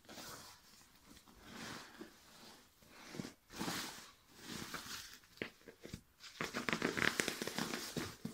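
Aegismax ultralight down sleeping bag being crammed by hand into its stuff sack: the fabric rustles and crinkles in uneven bursts, busiest and loudest over the last two seconds.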